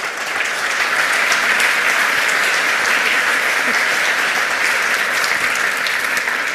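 Audience applauding: dense, steady clapping that starts to die down near the end.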